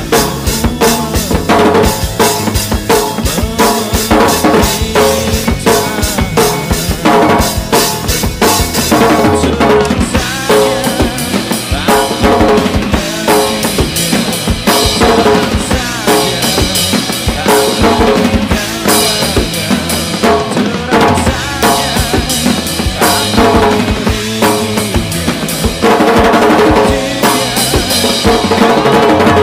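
A drum kit played hard and fast, with bass drum, snare, rimshots and cymbals, in a drum cover over a rock backing track.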